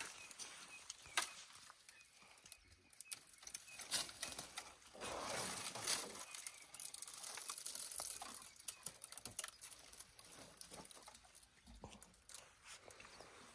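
African elephant calf browsing in dry bush: twigs snapping and leaves tearing and rustling, heard as many small cracks with a few longer rustles.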